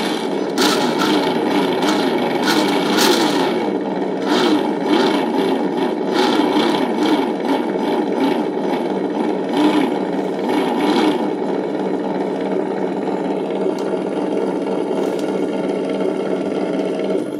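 ESS-One engine sound simulator playing a synthetic engine idle through the RC car's small onboard speaker. There are sharp crackles through roughly the first eleven seconds, and then it settles to a steady idle.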